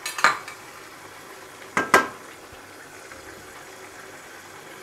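Mutton and tomato halves frying in a wok with a low steady sizzle, broken by sharp clacks against the wok: a couple just after the start and two close together about two seconds in.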